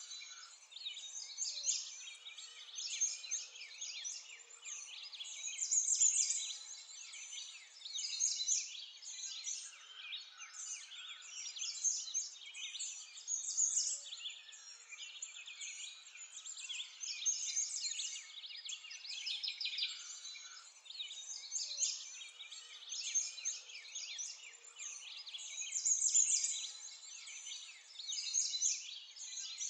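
A chorus of songbirds: dense, overlapping high chirps and trills, swelling and fading every few seconds.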